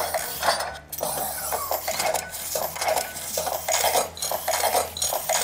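Irregular clicking and clattering of hard plastic toy parts being handled: the blaster and axe accessories of a Robosen Optimus Prime robot being fitted into its hands.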